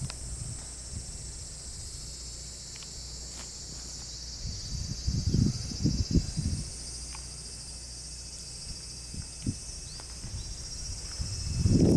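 Steady high-pitched chorus of insects, with a cluster of brief low rumbles about halfway through and a few faint clicks.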